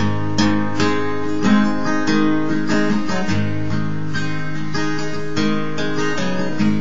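Takamine acoustic guitar, capoed, strummed in a steady run of chords.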